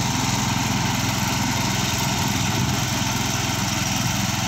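Mini tractor engine running steadily with a fast even pulse, driving a rear-mounted rotary slasher that is cutting grass.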